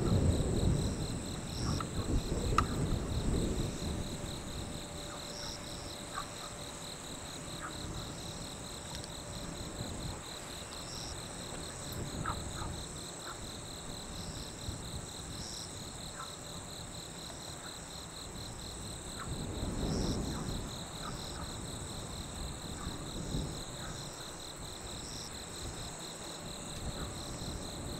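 Night insect chorus: a steady high-pitched trill, with another insect calling in short pulses every second or so. Low rumbles swell over the first few seconds and again about twenty seconds in.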